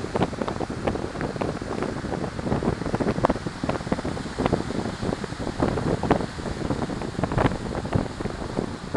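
Strong wind blowing across the microphone in irregular gusts and crackles, over the steady wash of surf breaking on a pebble beach.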